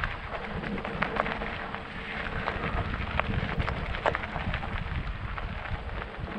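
Mountain bike riding on a rough trail: steady tyre noise with frequent sharp clicks and rattles, and wind buffeting the microphone.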